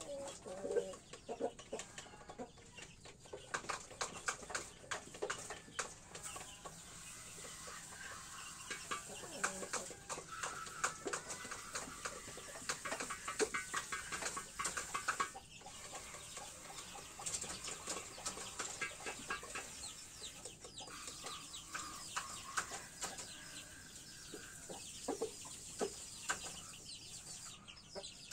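Domestic chickens clucking on and off, mixed with many light clicks and scuffs.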